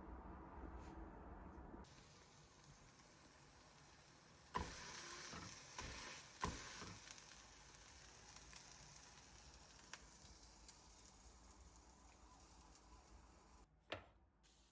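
Faint hiss that starts abruptly with a knock about four and a half seconds in and slowly fades, with a few light clicks and a sharper knock near the end.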